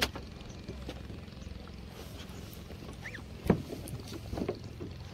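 Boat engine running steadily at low speed as a low hum, with scattered knocks, the loudest about three and a half seconds in, and a short high chirp just before it.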